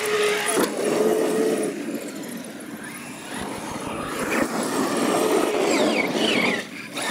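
Traxxas X-Maxx RC monster trucks racing on dirt, their electric motors whining and shifting in pitch as the throttle comes on and off.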